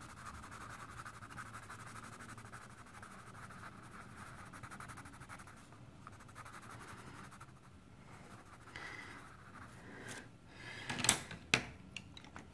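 Coloured pencil rubbing back and forth on a colouring-book page, a faint steady scratching. Near the end come a few sharp taps, the loudest sounds here.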